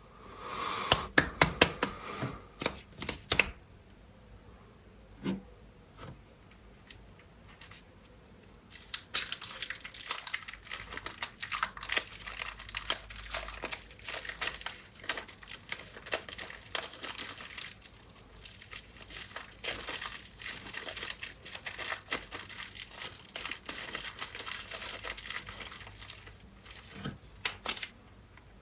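Plastic packaging of air-dry clay being torn open and crinkled by hand. A quick run of sharp snaps comes in the first few seconds, then a few scattered clicks, then steady crackly rustling and tearing from about nine seconds in.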